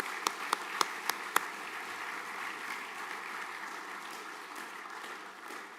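An audience applauding, with a few loud single claps close by in the first second and a half, about four a second. The applause carries on steadily and starts to thin near the end.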